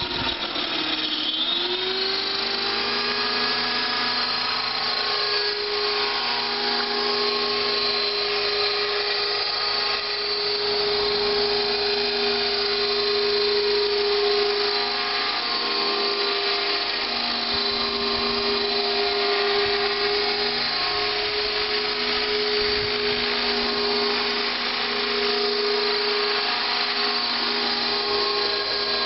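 Align T-Rex 600 electric RC helicopter in an MD 500 scale fuselage flying: the steady whine of its electric motor and gears over the rotor noise. The pitch dips about a second in, then climbs back and holds level.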